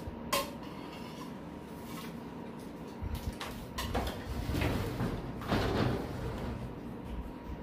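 Metal spoon clinking and scraping on a stainless steel bowl. About three seconds in come thuds and shuffling as a person gets up off the floor and walks away.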